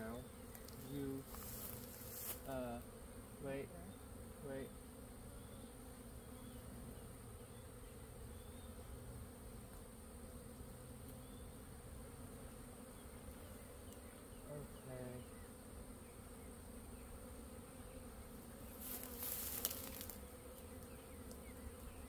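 Honey bee swarm buzzing steadily in the air around the clustered bees, a low continuous hum. Two short louder bursts of noise break in, one about two seconds in and one near the end.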